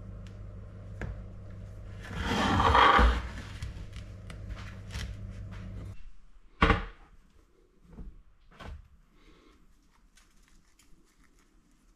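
Metal baking tray handled on a wooden table: a loud scraping rush about two seconds in, then a sharp knock soon after the middle and two softer knocks after it. A steady hum under the first half stops suddenly.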